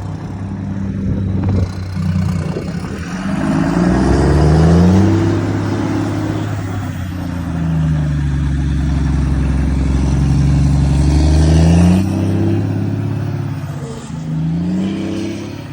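Heavy truck's diesel engine pulling hard up a climb, its deep note dipping and rising in pitch several times. It is loudest through the middle and drops back suddenly near the end.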